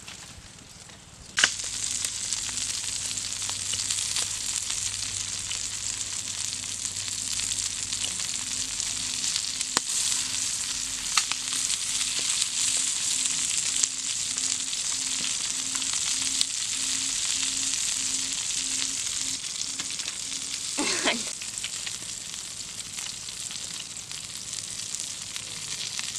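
Whole frogs sizzling on a hot stone slab over a wood fire: a steady, hissing sizzle with scattered small pops, starting suddenly about a second and a half in.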